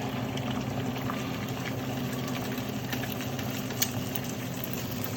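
Mixed eggs sizzling and crackling in hot oil in a frying pan, over a steady low hum.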